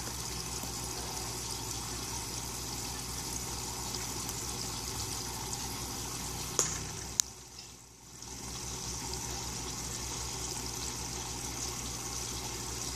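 Steady trickling, running water from an aquaponics system, with a low hum underneath. Two sharp clicks come a little past halfway, and the sound dips for about a second after them.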